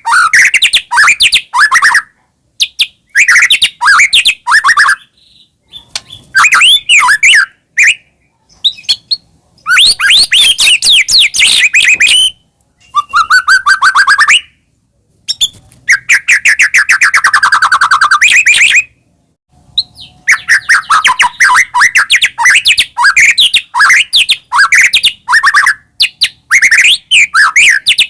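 White-rumped shama (murai batu) singing loud, rapid phrases of whistles and fast trills, in bursts of one to three seconds separated by short pauses.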